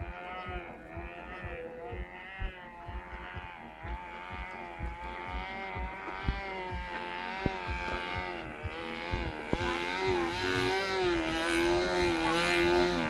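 Radio-controlled model airplane's motor buzzing in flight, its pitch wavering up and down as it manoeuvres. It grows louder over the last few seconds as the plane comes close overhead.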